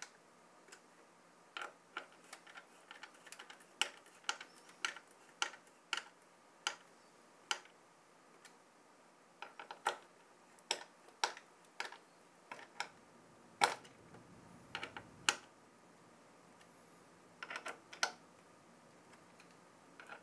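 Irregular sharp clicks and ticks of a screwdriver tightening a CPU cooler's mounting screws into their nuts, with a low rumble of handling for about two seconds just past the middle.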